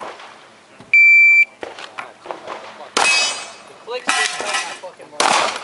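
A shot timer gives one loud start beep about a second in, then a handgun fires. The three loudest shots come about a second apart, each with a short echo.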